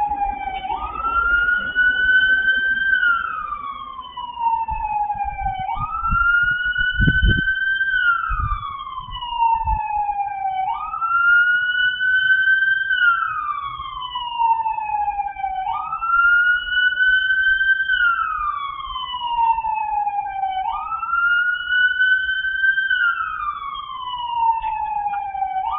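Police car siren wailing, each cycle a quick rise to a high pitch, a short hold and a slow fall, repeating about every five seconds. A few low thuds come between about a quarter and a third of the way through.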